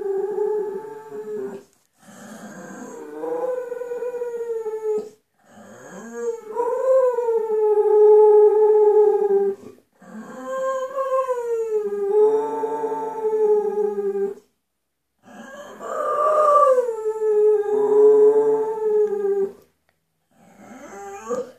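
Bull terrier howling: a series of long, drawn-out howls, each a few seconds long with a short break between, the pitch swelling up and then settling on a held note.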